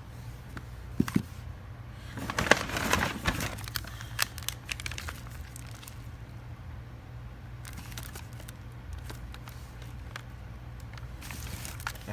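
Crinkling and rustling of fireworks packaging being handled, busiest a couple of seconds in, with a couple of sharp knocks about a second in, over a steady low hum.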